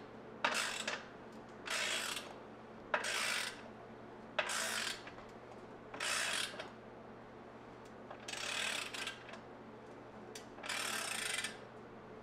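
Hand ratchet wrench clicking in repeated strokes, about eight short bursts a second or two apart, as a bolt is tightened by hand.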